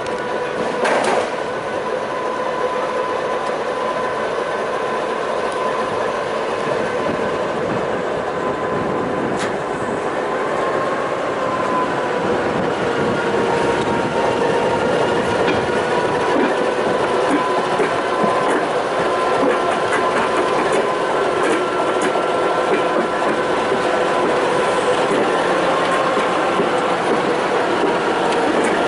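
Class 234 diesel locomotive rolling slowly at walking pace, its V16 diesel engine running with a steady hum and a few steady tones over it. Two sharp clicks come about a second in and again near ten seconds in.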